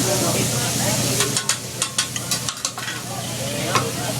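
Food frying and sizzling with a steady hiss. A quick run of sharp taps or clicks starts about a second in, and a few more follow later.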